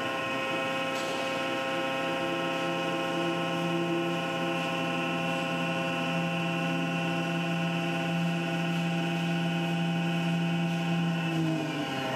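Langmuir MR-1 CNC gantry mill cutting a chamfer into aluminum: a 1/4-inch 90-degree chamfer mill spinning at 8000 RPM and feeding around the part under flood coolant. It makes a steady whine of several held tones, with a lower tone from the machine that holds through most of it and shifts near the end.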